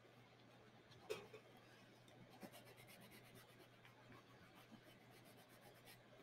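Faint scratching of a colored pencil shading on sketchbook paper in quick, repeated back-and-forth strokes, with a light tap about a second in.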